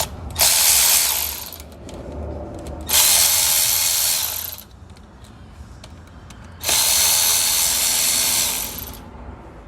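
Power impact wrench run in three bursts, the last the longest, on the crankshaft balancer pulley bolt, which is tightened to 131 foot-pounds.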